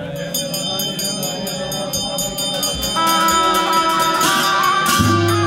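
Music: high ringing bell tones struck in a rapid, even rhythm. About three seconds in, held instrumental notes join, and near the end a deep steady drone with a repeating figure comes in.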